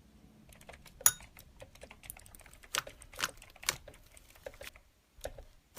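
Slime being squished and pressed, making irregular small clicks and pops, a few of them louder.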